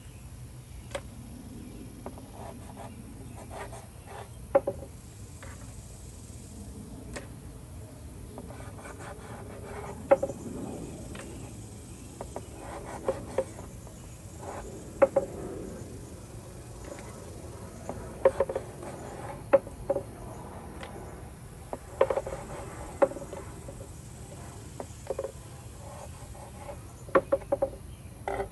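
A knife cutting stingray wing on a plastic cutting board: irregular sharp knocks of the blade striking the board, often in quick pairs, with rasping strokes as it saws through the wing.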